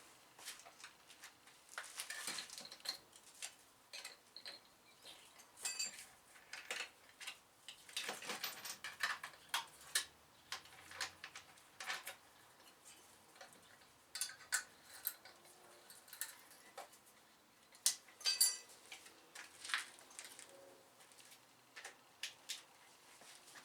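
Irregular light metallic clinks and knocks, a few ringing briefly, as metal tools and pieces of steel are handled and set down.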